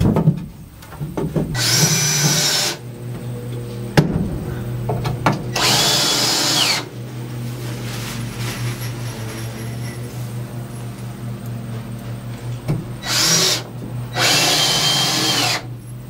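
Power drill driving screws into lumber boards: four runs of a second or so each, the motor's whine dropping in pitch as each one stops, over a steady low hum. A sharp knock about four seconds in.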